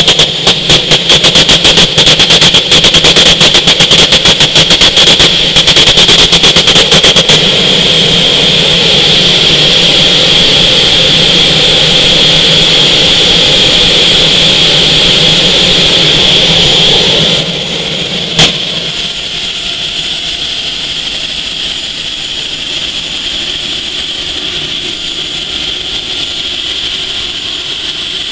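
Garrett air start unit's small gas turbine running at speed with a loud, steady high whine. Over the first seven seconds a rapid run of sharp crackling pops sits on top of it. About 17 seconds in the sound drops to a quieter steady run, and a single sharp click follows a second later.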